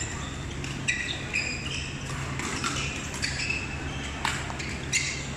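Sports-shoe soles squeaking on a badminton court floor in short, scattered chirps, with a few sharp smacks of rackets hitting shuttlecocks, over a steady low hum.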